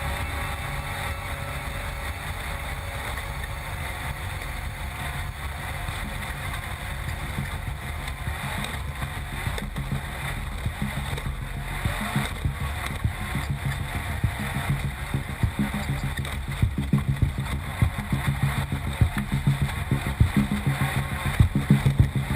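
Off-road race car's engine running with a steady low rumble, joined by sharp knocks that grow more frequent in the second half.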